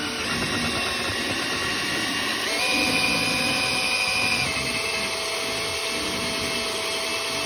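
Corded or cordless drill driving a paddle mixer through a bucket of soaked feed, its motor whining steadily. The whine steps up in pitch a little over two seconds in and drops back down about two seconds later.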